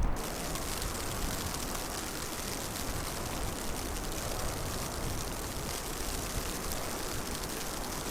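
Snowstorm wind making a steady, even hiss.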